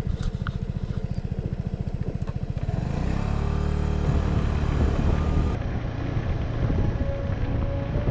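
Suzuki Burgman 200 scooter's single-cylinder engine ticking over with an even low pulsing, then pulling away about three seconds in and running louder and steadier under throttle.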